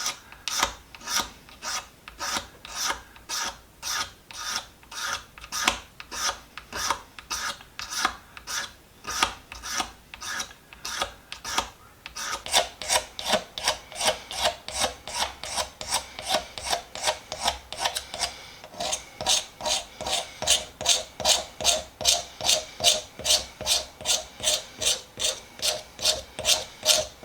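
Hand scraping of an old wooden screwdriver handle, taking off the grimy old finish in steady back-and-forth strokes, a little under two a second. About twelve seconds in the strokes quicken and take on a brighter, rasping edge.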